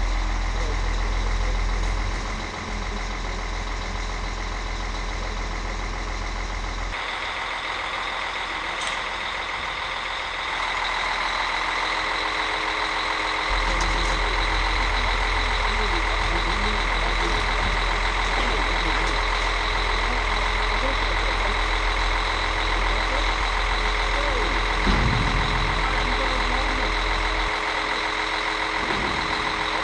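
Truck-mounted crane running throughout, a steady engine drone with a high, steady whine over it. A low rumble of wind on the microphone comes and goes.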